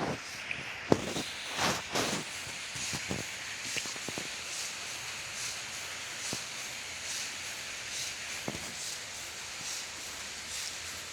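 A sleeping child's noisy breathing, a soft breathy snore repeating a little under once a second over a steady hiss. A few knocks in the first two seconds.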